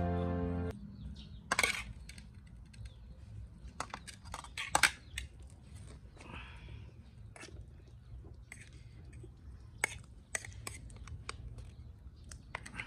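Background music stops about a second in. Then come scattered light clicks and taps of small hard objects, the loudest near five seconds in, over a faint low hum.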